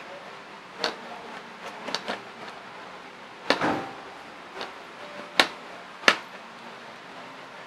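Handling clicks from clipping a multimeter test-lead clip onto a kitchen hood circuit board's output pin: about six short, sharp clicks and light knocks, the loudest in the middle and near the end.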